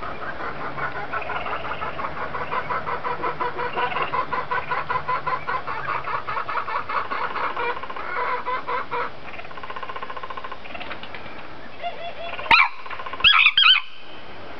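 Sri Lankan junglefowl rooster giving a long run of rapid clucking notes, then a loud, short crow in two parts near the end.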